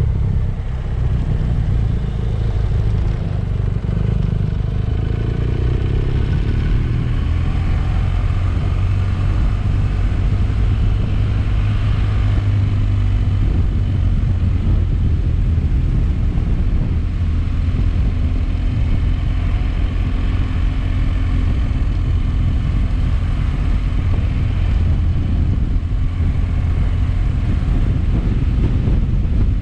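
Motorcycle engine running under way. Its pitch rises and falls for the first several seconds, then holds steadier.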